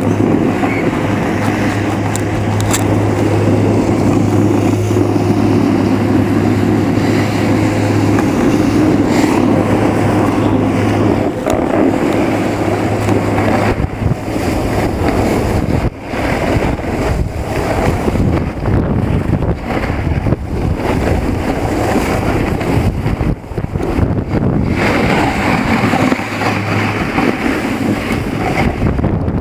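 Wind buffeting the microphone and the rush of a snowboard sliding over packed snow on a downhill run, a loud steady rumble that turns rougher and more uneven about halfway through.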